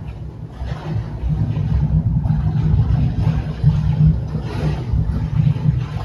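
Soft rustling and scuffing of cotton gi and knees on the mat as two aikido practitioners grip and move on their knees, over a steady low rumble of air noise.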